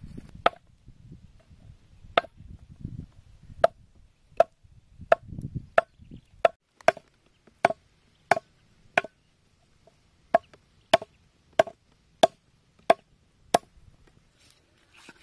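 A large knife chopping a raw pig's leg on a round wooden chopping block: about seventeen sharp chops, most coming roughly every two-thirds of a second, stopping shortly before the end.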